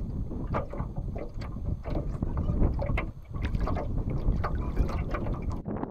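Wind buffeting the microphone over water lapping against a small flat-bottomed boat's hull, with scattered short knocks and clicks.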